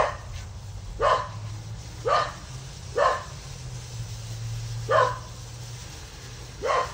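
A dog barking in single, sharp barks about once a second, six in all, with a gap of about two seconds in the middle.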